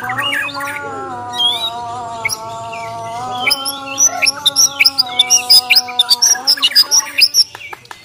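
White-rumped shama (Bornean murai batu) giving its aggressive fighting song: a fast string of loud whistled notes, chirps and sweeps that grows denser about halfway through, ending in a fast run of clicks. A steady humming tone sounds underneath until near the end.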